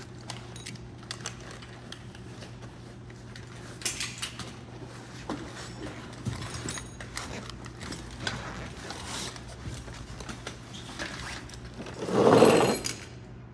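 Firefighters handling their gear on a concrete floor: scattered clicks, rustles and knocks of turnout coats, SCBA harness straps and buckles, over a steady low hum. Near the end, a louder scrape of about a second as the plastic Stokes basket is slid and turned on the floor.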